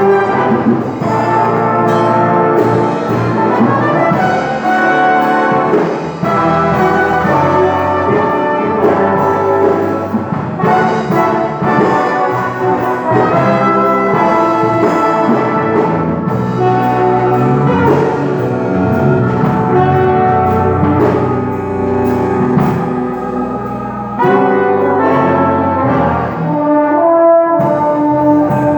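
Big band with saxophone, trombone and trumpet sections, backed by keyboard, bass, guitar and drums, playing a hymn arrangement; near the end the ensemble thins to a few sustained held notes.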